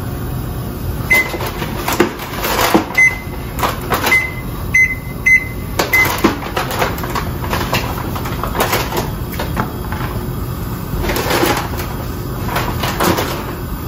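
Six short, high electronic beeps from a kitchen appliance's control panel over the first six seconds, with a few knocks and clatters of things being handled on the counter over steady background noise.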